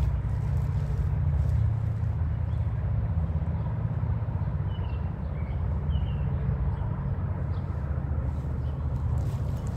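Low, steady rumble of a vehicle engine, with a few faint high chirps around the middle.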